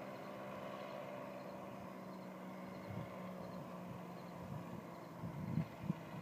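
Powered parachute's engine and propeller droning steadily as the craft flies in on its landing approach. A few low thumps come near the end.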